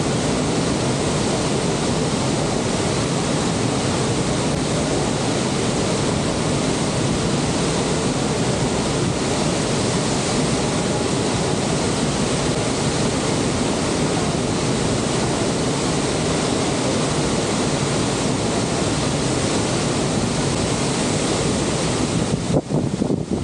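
The steady roar of Niagara's Horseshoe Falls, an even rushing noise of falling water. Near the end, wind starts buffeting the microphone and the sound turns uneven.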